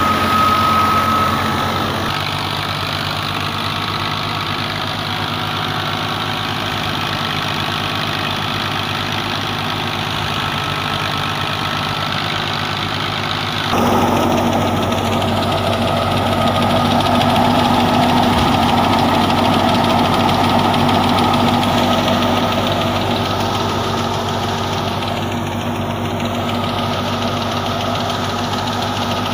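Ghazi tractor's diesel engine running steadily under load, driving a wheat thresher, together with the thresher machine running. The sound shifts abruptly about two seconds in and again around halfway.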